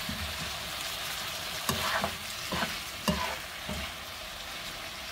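Cubed potatoes in gochujang sauce sizzling in a nonstick frying pan as they are stir-fried, with a spoon scraping and turning them several times around the middle.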